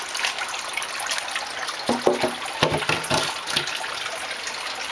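Water running and trickling steadily into a basement sump pit from an inflow pipe. A few short, louder pitched sounds come about two to three seconds in.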